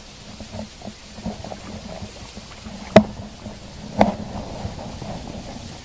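An angler lands a small hooked rockfish on a light lure rod, with two sharp clicks or knocks about a second apart over a steady low background hiss.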